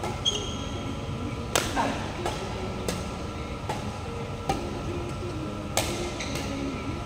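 Badminton rackets striking a shuttlecock in a rally, a string of about seven sharp hits roughly a second apart, over the steady hum of the hall.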